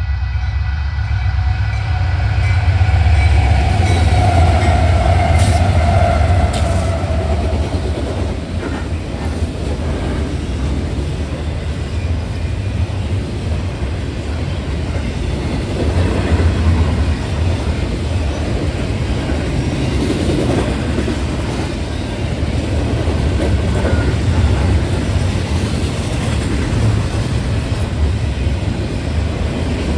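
Union Pacific intermodal stack train passing close by: a steady low rumble with the clatter of wheels on the rail joints. In the first several seconds the locomotive horn sounds, its chord sagging slightly in pitch as it passes, then fading.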